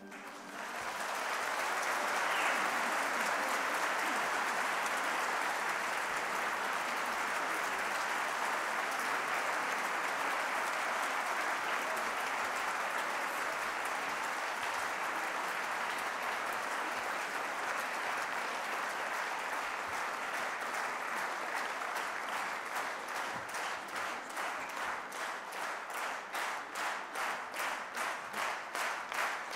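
Audience applause starting just as a choir's song ends, rising within the first second to steady clapping. In the last third it turns into rhythmic clapping in unison.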